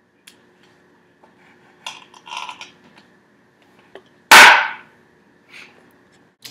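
Kitchen knives tapping and scraping on a wooden cutting board as cooked shrimp are chopped, in faint scattered clicks, then a single loud thump on the counter a little after four seconds in.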